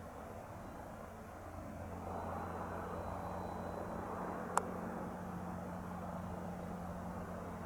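Cessna 182 Skylane RG's six-cylinder Lycoming piston engine and propeller running steadily, growing louder about two seconds in. A single sharp click partway through.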